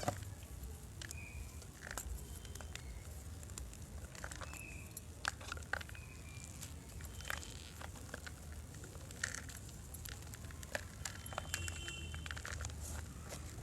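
Gym chalk being crunched, with irregular small crackles and cracks spaced unevenly over a steady low hum.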